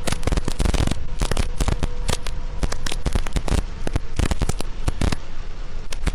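Heavy rain drumming on a vehicle's windshield and roof, picked up by the dashcam as a dense run of irregular sharp taps and cracks over a steady hiss.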